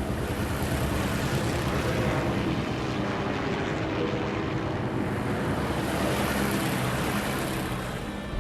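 Propeller aircraft engines droning steadily, swelling twice as the planes pass.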